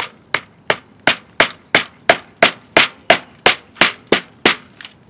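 White-faced plastic mallet tapping a power steering reservoir down onto a GM 3800 power steering pump to seat it on its O-ring. About fourteen even, sharp strikes come roughly three a second, with the last ones lighter near the end.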